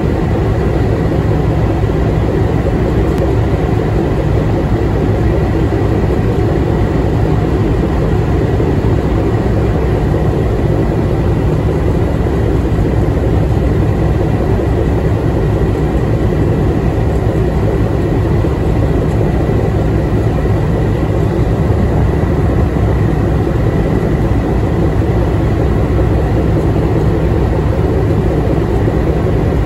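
Tugboat's diesel engine running steadily under load while towing, a continuous low drone with a faint steady high whine above it.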